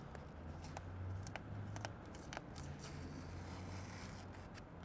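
Masking tape being handled and peeled off a vehicle's door pillar: faint scattered crackles and ticks over a low steady hum.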